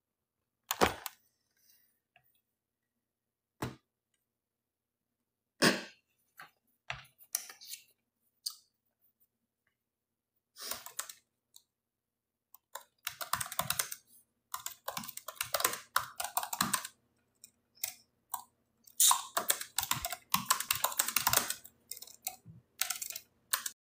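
Rapid clicking like typing on a keyboard, in irregular runs that grow denser over the second half, after a few separate sharp knocks in the first several seconds.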